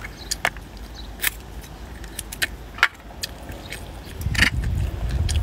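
Eating sounds: irregular short clicks and smacks of chewing sausage, roughly two a second. A low rumble joins about four seconds in.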